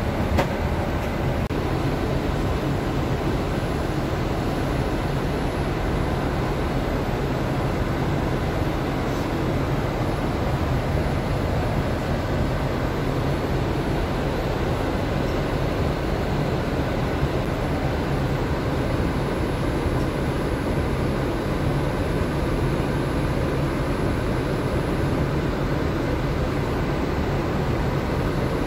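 Steady cabin noise of a jet airliner in flight: an even, unbroken rush of engine and airflow noise heard from inside the passenger cabin.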